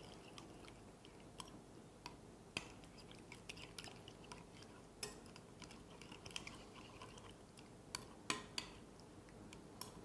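Metal spoon stirring a thick mayonnaise-and-citrus dressing in a glass bowl: quiet wet scraping with scattered light clicks of the spoon against the glass.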